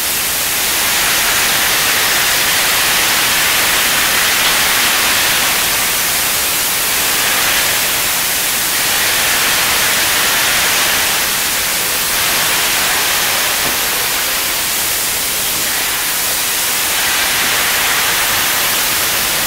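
Steam hissing steadily from a YG metre-gauge steam locomotive that has just been lit up, swelling and easing slightly every few seconds.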